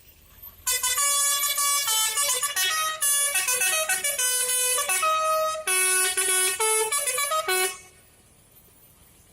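A tour bus's telolet horn, a set of air horns playing a quick tune of stepped notes, starting about a second in and stopping suddenly after about seven seconds.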